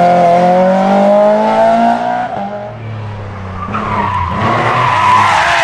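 Rally car engine at full throttle, its note climbing for about two seconds before the driver lifts off and it drops away. From about four seconds in, tyres skid and squeal as the car slides.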